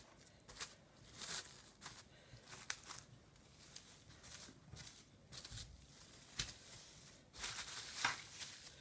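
Plastic cling wrap crinkling and rustling faintly as a ball of pastry dough is wrapped up by hand, with a few light handling knocks.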